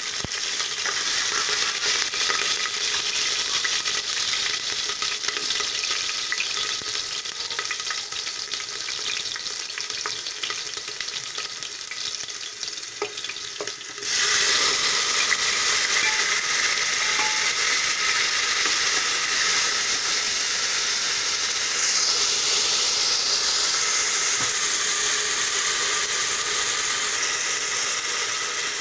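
Cumin seeds and chopped green chillies sizzling in hot oil in an aluminium pressure cooker, the sizzle slowly fading. About halfway through, chopped tomatoes are pushed in with a spoon and the frying jumps at once to a louder, steady sizzle.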